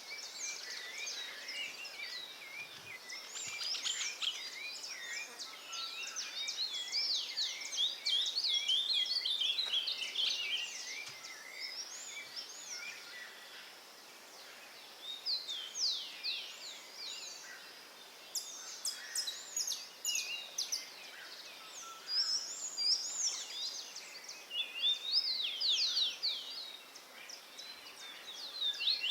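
Several wild birds singing at once: a dense chorus of quick chirps and whistled phrases, thinning to scattered calls through the middle and picking up again near the end.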